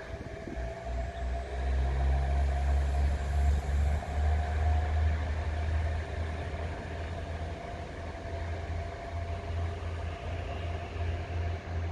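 KiHa 110 series diesel railcar pulling away under power: a low diesel engine rumble with a faint steady whine over it, swelling about a second and a half in and then easing slightly as the railcar draws off.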